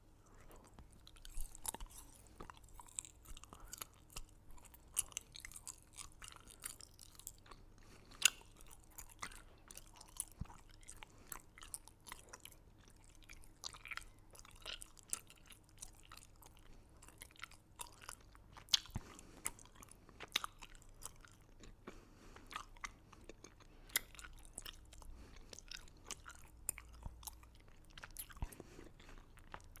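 A person chewing and crunching hard, crunchy candy with the mouth close to the microphone. Irregular sharp crunches run throughout, a few of them louder.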